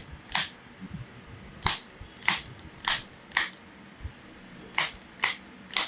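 A series of about seven sharp clicks, roughly half a second apart, coming in short runs with pauses of about a second between them.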